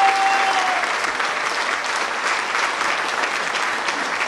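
Audience applauding steadily, with a brief steady tone sounding over the clapping at the very start.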